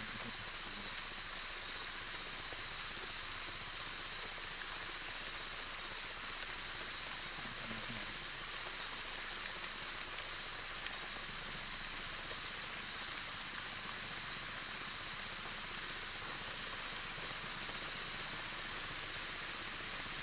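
Night insect chorus: a steady, high-pitched buzzing over a soft hiss.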